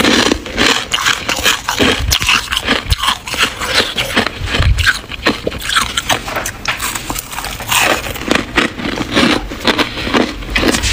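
Fluffy freezer frost crunching and crackling: a dense, irregular run of small crisp crunches.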